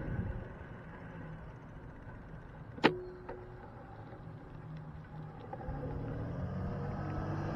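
A car's engine and tyres growing louder as it comes closer in the second half, with a single sharp click about three seconds in.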